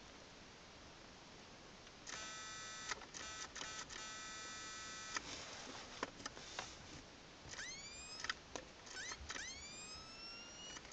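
Whelen siren amplifier sounding through its small built-in speaker: a steady horn-like tone that cuts in and out a few times, then rising siren sweeps that climb fast, level off and restart several times, with a few clicks between.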